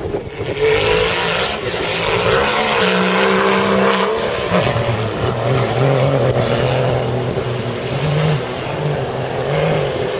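Engine of an off-road rally truck running hard as it drives across beach sand, its note shifting up and down several times with the throttle.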